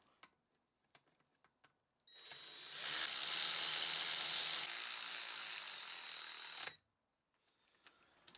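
Ratchet wrench run rapidly, tightening a bolt on a gearbox casing: a dense, steady stream of ratchet clicking that starts about two seconds in and stops sharply about two seconds before the end.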